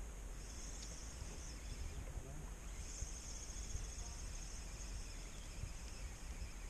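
Outdoor ambience: wind rumbling on the microphone under a steady, high chirring of insects, with a few faint ticks.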